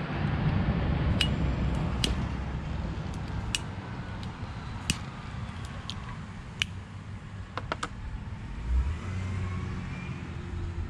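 Low, steady mechanical rumble, with a few sharp clicks scattered through it.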